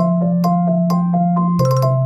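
An iPhone iOS 17 ringtone playing: a looping melody of short struck bell-like notes, about two a second, over a held bass note that steps down in pitch about one and a half seconds in.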